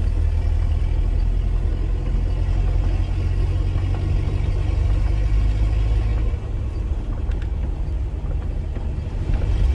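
Mitsubishi L200 pickup rumbling steadily as it drives along a wet dirt road, heard from inside the cab: engine and tyre noise, dipping briefly about six seconds in.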